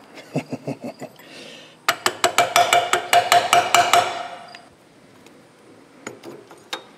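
Astro 1828 Onyx 3/8-inch air impact wrench run at part trigger. After a short hiss of air, its hammer clacks evenly about six times a second for roughly two seconds, with a metallic ring. There are light metal clinks in the first second and a couple of faint clicks near the end.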